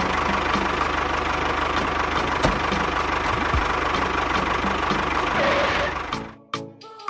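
An engine running steadily with a rapid, even pulse, then cutting off about six seconds in.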